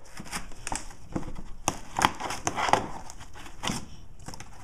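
Irregular sharp clicks, knocks and scrapes of a Leatherman Z Rex rescue multi-tool being worked one-handed.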